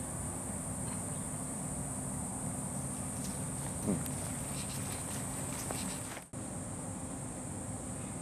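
Insect chorus in the trees and grass, a steady high-pitched drone, over a low outdoor rumble with a few faint clicks. The sound cuts out briefly about six seconds in and the drone resumes.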